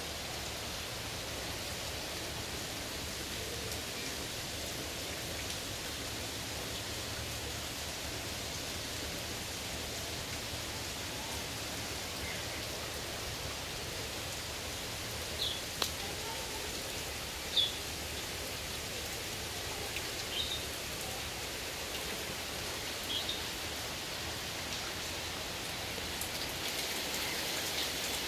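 Heavy rain pouring steadily onto puddled ground and brick, an even hiss that grows a little louder near the end. A few short, sharp high sounds stand out over it in the second half.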